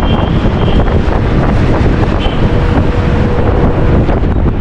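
Heavy wind buffeting on the microphone, held out at the open window of a moving bus, over the bus's running and road noise.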